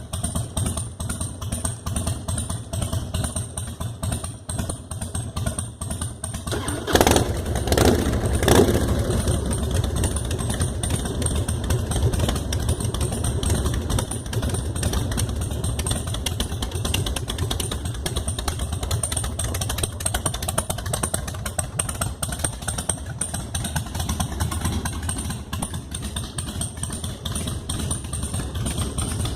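Carbureted Harley-Davidson Softail's 1450 cc Twin Cam V-twin idling with an even beat, the throttle blipped twice in quick succession about seven seconds in.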